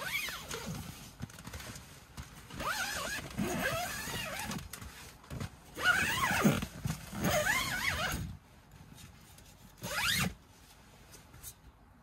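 Zipper on a rooftop tent's fabric window panel being pulled closed in several strokes, each a second or two long, with pauses between and the pitch sweeping up and down as the slider runs.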